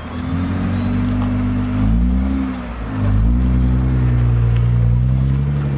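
Nissan GT-R R35's 3.8-litre twin-turbo VR38DETT V6 pulling away from a standstill. The engine note climbs, drops about three seconds in, then climbs again and holds as the car drives off.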